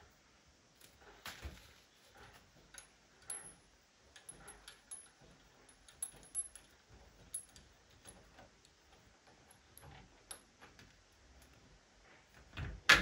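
Irregular light metallic clicks and clinks of a wrench working a washing machine's transportation bolt loose, with one loud knock near the end.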